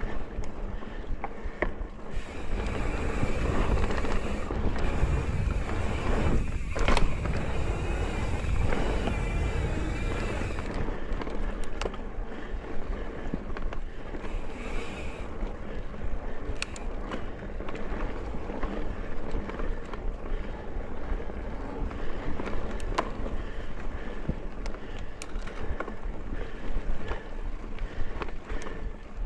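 Mountain bike riding along a dirt singletrack trail: steady tyre and ride noise with scattered clicks and rattles from the bike over bumps. Heavy wind rumble on the microphone, strongest in the first ten seconds or so.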